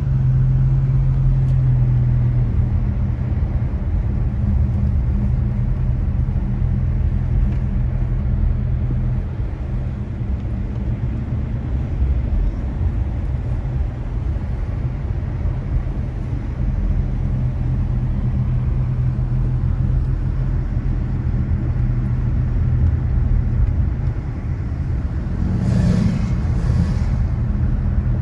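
Car driving, heard from inside the cabin as a steady low engine and road hum. Two brief noisy sounds come near the end.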